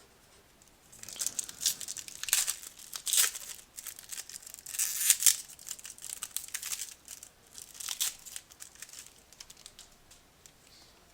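Rustling and crinkling from handling a pack of 2014 Panini Prizm football cards, in irregular bursts over several seconds.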